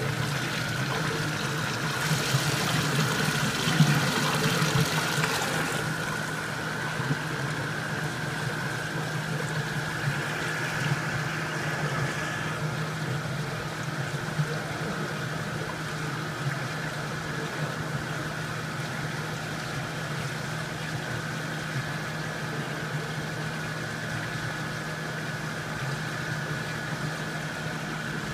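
Water splashing and running into a glass jar as it is filled from a tank for the first few seconds, over a steady machinery hum that continues throughout.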